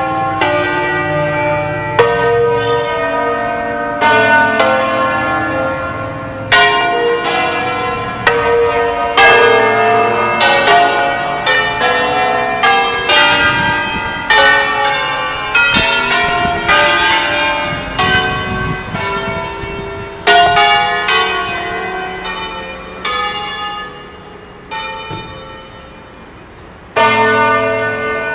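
Church bells ringing, overlapping strokes that each ring on and decay. The strokes come about two seconds apart at first, crowd together in the middle, thin out and grow fainter, and then one more loud stroke comes near the end.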